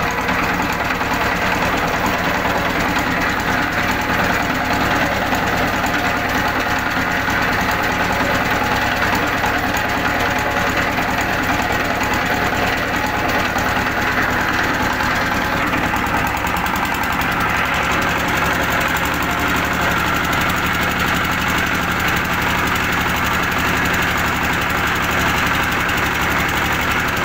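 Chinese stationary diesel engine running steadily with a knocking diesel beat, belt-driving a plunger sprayer pump. Its note shifts about two-thirds of the way through.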